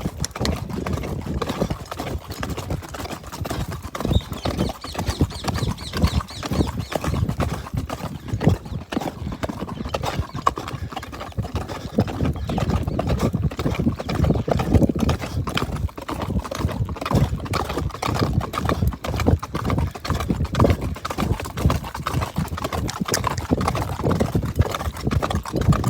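Marwari horse's hoofbeats, a continuous irregular clip-clop of hooves on the ground as the horse moves on steadily.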